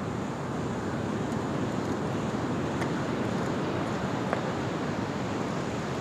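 Steady rushing noise of wind and surf, with a couple of faint clicks.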